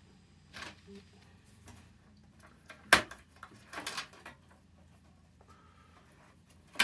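Irregular sharp clicks and knocks of parts and cables being handled inside a desktop computer case, with one loud click about three seconds in and another at the very end.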